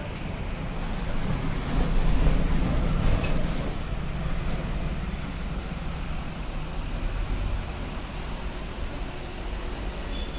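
Steady low rumbling background noise, swelling briefly about two to three seconds in.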